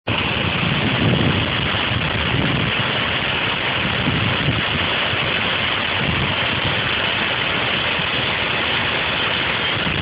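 Steady rushing noise of a waterfall more than 15 metres high pouring into its pool.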